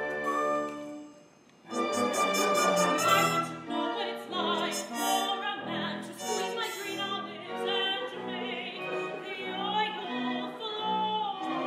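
A woman singing an operatic line in English with instrumental accompaniment. The music breaks off about a second in, then the next sung phrase starts with wavering, vibrato-laden notes.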